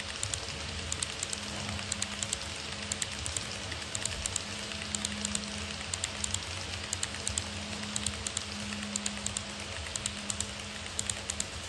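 HO-scale model electric train running along the track: its wheels click in quick small clusters over the rail joints above a steady hum from the running train.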